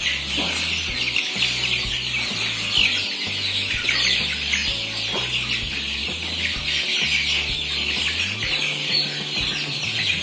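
A large flock of young kampung super chickens peeping and chirping all together in a dense, continuous high chorus, over background music with a stepping bass line.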